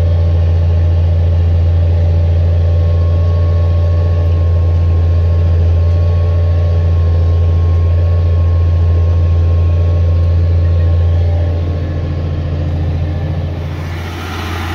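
Tractor diesel engine running steadily at a fixed throttle while pulling a subsoiler, a constant low hum. It eases off a little near the end.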